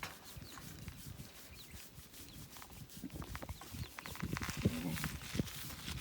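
Hand rubbing and scratching a horse's coat close to the microphone, with scattered soft thumps, busier in the second half.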